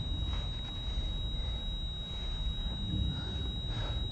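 A low, steady rumble with a few soft breaths, one just after the start and one near the end.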